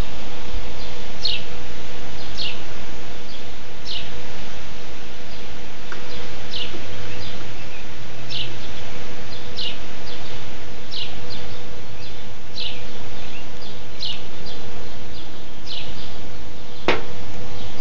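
A backyard swing squeaking in a steady rhythm, one short high falling squeak about every one and a half seconds as the swing goes to and fro, over a steady hiss.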